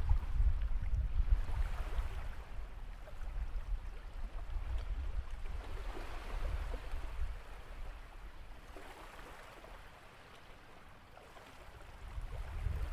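Sea surf washing onto a beach, swelling and ebbing every few seconds, with wind rumbling on the microphone; it grows quieter in the second half.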